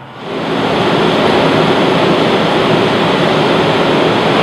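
Woodshop machinery running: a steady, loud rushing noise that fades up just after the start and then holds even.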